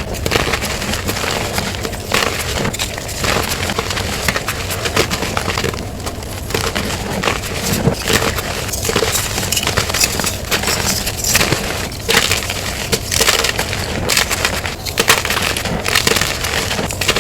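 Plain gym chalk blocks and re-formed chalk being crushed, a continuous dense crunching and crackling with many sharp snaps.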